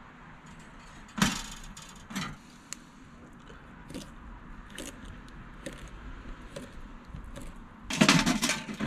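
Light metal clicks and clinks from the wire racks and aluminium box of a Little Chief electric smoker as fish fillets are set in, then a louder metal rattle about eight seconds in as its front door is fitted and shut.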